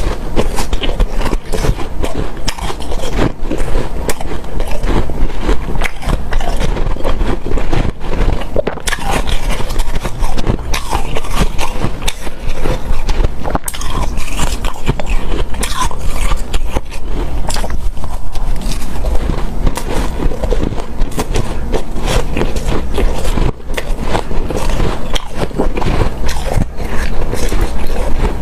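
Close-miked chewing and crunching of hard, snow-like powdered ice in big bites, with a soft squeaky crunch: dense, rapid crackling throughout.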